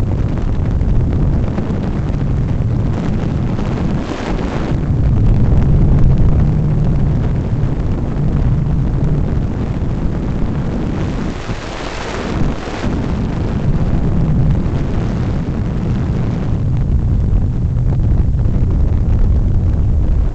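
Loud wind rush buffeting the microphone on an open weight-shift microlight trike coming in to land, a steady low rumble that swells twice.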